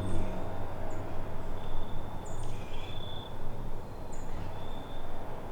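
Small birds calling: short high chirps that drop in pitch and thin whistled notes about half a second long, one every second or so, over a steady low rumble.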